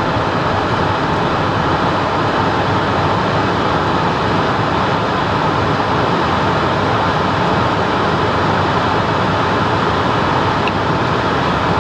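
Steady rushing noise inside the cockpit of a Cessna Citation M2 twin-turbofan jet in the climb: airflow and engine noise, even and unbroken.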